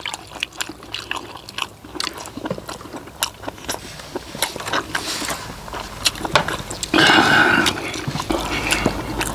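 Close eating sounds: chewing and mouth smacks with small clicks of spoons against metal bowls, from people eating stir-fried webfoot octopus. A louder stretch of sound about seven seconds in lasts about a second.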